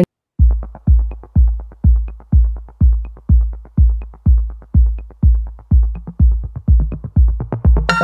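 Background music: an electronic track with a steady kick drum about twice a second and light ticking between the beats. It starts just after a brief silence, and more layers join near the end.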